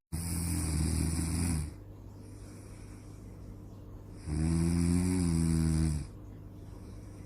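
A person snoring: two low snores, each about a second and a half long and about four seconds apart, over a steady low hum.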